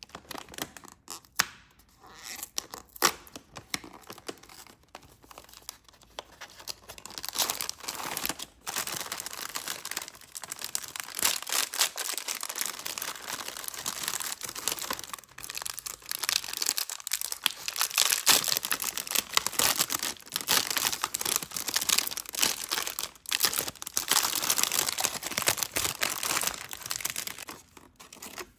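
Chocolate-biscuit packaging being opened by hand. A few sharp clicks and taps from the cardboard box come first, then long stretches of foil crinkling and tearing from the sealed inner wrapper. The clear plastic biscuit tray crackles near the end.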